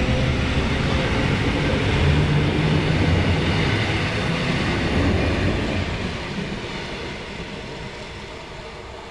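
EN57 electric multiple unit pulling out of the station: a loud rumble of its wheels and running gear as the last car passes close by, fading steadily from about six seconds in as the train draws away.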